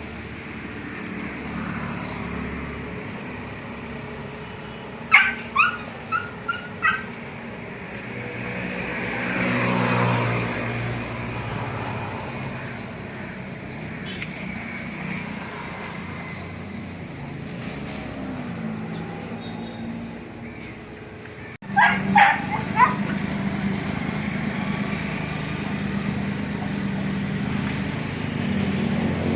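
A dog barking in short runs of several barks, about five seconds in and again past twenty seconds, over a steady low engine hum that swells briefly around ten seconds in.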